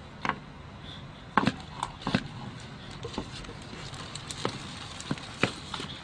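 Tortoise shells knocking together during mating: about ten short, sharp, irregular clacks, the loudest about a second and a half in.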